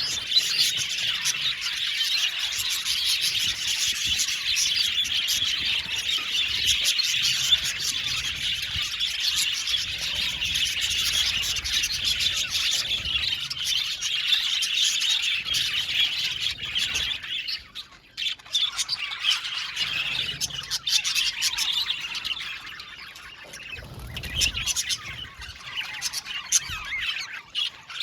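A flock of budgerigars chattering together, a dense run of high chirps, warbles and squawks. It drops out briefly about two-thirds of the way through, stays quieter for a couple of seconds, then builds back up.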